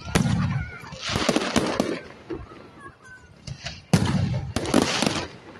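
Aerial firework shells bursting, with several sharp bangs, each followed by a crackle: one near the start, one about a second in, and a quick cluster near the end.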